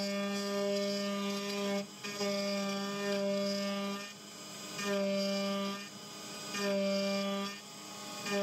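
Carvera desktop CNC machine's single-flute end mill cutting aluminium at 12,000 RPM: a steady pitched hum. It holds for about the first four seconds, then comes and goes in stretches of about a second, dropping quieter between them.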